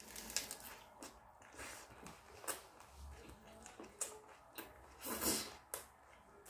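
Close-mouthed chewing of a leafy ssam wrap: faint, wet mouth clicks and smacks scattered through, with one louder noisy burst just after five seconds in.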